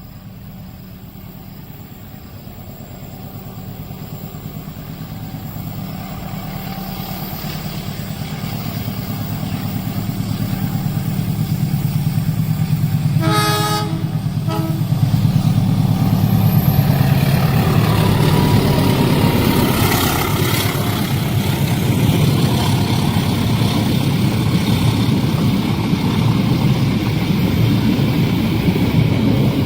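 Train approaching, its low rumble growing steadily louder, then a horn blast about halfway through followed by a brief second toot. The train then passes close, with a loud, continuous rumble of wheels on rails.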